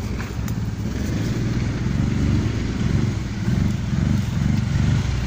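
Quad bike (ATV) engine running, growing louder about a second and a half in and wavering after that.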